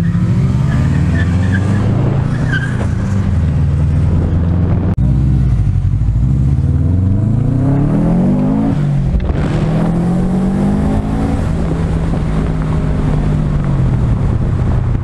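Car engine running at a steady cruise, then accelerating: the revs climb, drop sharply at a gear change, climb again and settle back to a steady run.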